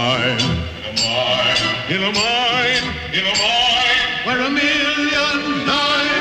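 Music with a wavering melody line over a dense accompaniment, steady in level and cut off abruptly at the end.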